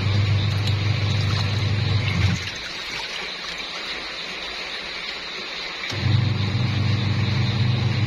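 Top-loading washing machine on its wash cycle: the motor hums as it churns the clothes through the water, stops about two and a half seconds in, and starts again about six seconds in, the stop-and-start of the wash action. Water sloshes in the tub the whole time.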